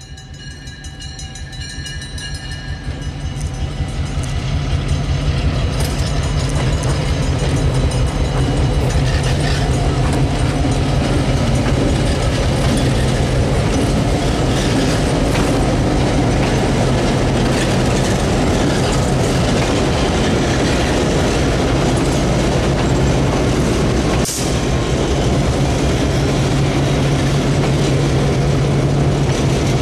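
A passenger train hauled by three EMD diesel locomotives (a GP38, an F7A and a GP9) draws near and passes close by. The engines' low hum and the rolling rumble grow louder over the first five seconds, then hold steady as the locomotives go past.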